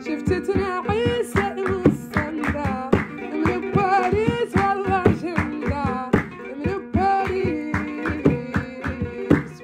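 A woman singing an ornamented Mauritanian song melody over a steady, quick drum beat and plucked-string accompaniment.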